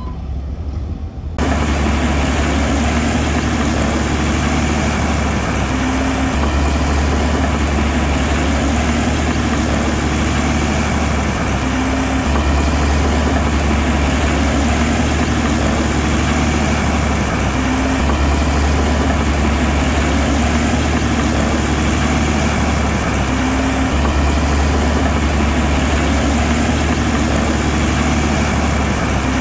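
Heavy construction machine's diesel engine running steadily, a deep low hum that swells slightly about every six seconds. It comes in abruptly about a second and a half in.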